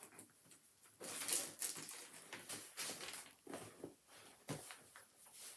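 Faint rustling with scattered small knocks and clicks, a person shifting in a chair and handling things within reach; the loudest rustle is about a second in.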